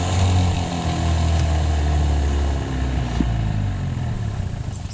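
A 27-year-old boat outboard motor running steadily with its primer pulled out, since it doesn't like idling without it. Its note drops slightly about halfway through and fades out at the very end.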